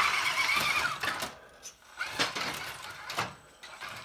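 Electric motor of an RC rock crawler whining steadily under load as it climbs, cutting out about a second in; then three sharp knocks about a second apart.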